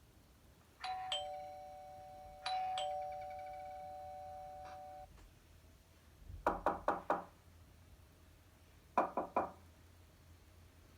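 Two-note doorbell chime (ding-dong) rung twice in a row, then knocking on a door: four quick raps, and a couple of seconds later three more.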